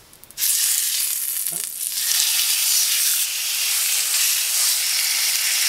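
Floured, egg-washed pompano fillet laid meat side down into hot oil in a frying pan. The oil bursts into sizzling about half a second in and keeps up a steady sizzle.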